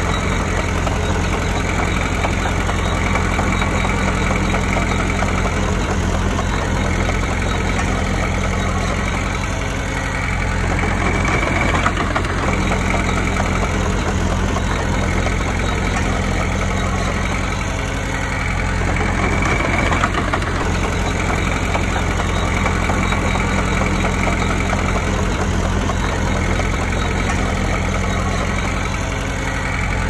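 Diesel engine of a Komatsu D20P crawler bulldozer running steadily, easing off briefly twice, about ten and eighteen seconds in.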